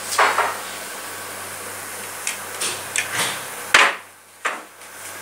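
Wooden folding chair being handled and set upright: a short wooden scrape, a few light clicks, then one sharp knock about three-quarters of the way in, followed by a smaller one.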